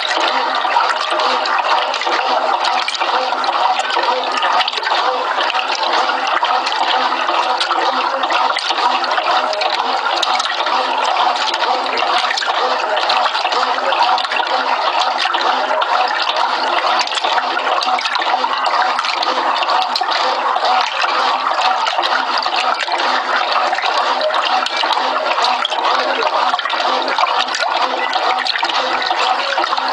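Brastemp Clean 6 kg top-loading washing machine agitating a double duvet in water: a steady churning and sloshing of water that does not let up.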